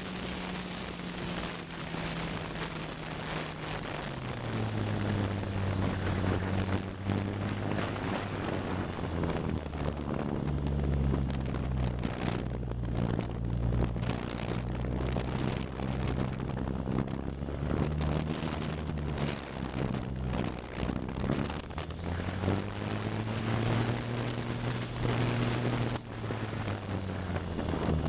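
Electric motor and propeller of a ParkZone T-28 Trojan RC plane, heard from a camera on board in flight: a steady hum that drops in pitch about four seconds in and rises again near the end as the throttle changes, under strong wind noise on the microphone.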